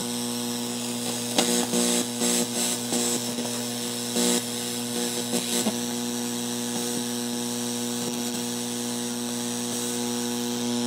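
Speaker driven by a freshly powered TDA7052 mini amplifier board giving a steady mains hum. Scratchy crackles come in bursts between about one and six seconds in as the volume potentiometer is turned. The hum and crackle through the speaker show that the amplifier IC is working.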